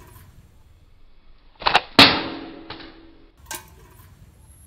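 Homemade tube slingshot pistol firing: a sharp double snap about one and a half seconds in, then a louder crack with a short ringing tail, and a single sharp click about three and a half seconds in.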